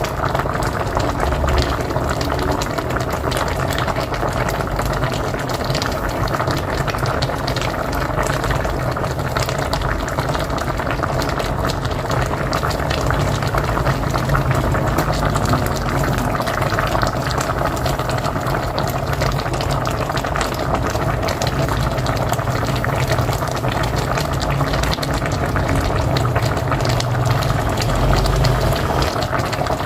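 A pot of mocotó (beef feet) at a steady boil on a wood-fired stove: continuous bubbling with many small, quick pops.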